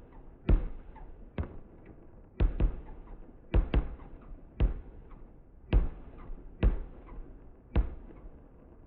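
Fireworks bursting: a run of about ten sharp booms, roughly one a second with a couple of quick pairs, each dying away in a short echo.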